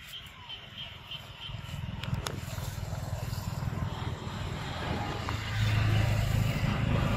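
Low, steady rumble of a motor vehicle engine, getting louder from about a second and a half in and loudest near the end.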